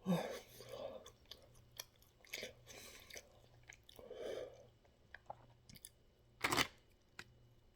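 A person chewing a mouthful of taco close to the microphone, with soft, irregular wet mouth sounds and light crunching. One short, sharp sound about six and a half seconds in is the loudest moment.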